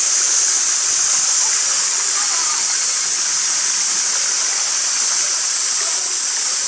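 Steady high-pitched drone of a summer cicada chorus, with faint distant voices underneath.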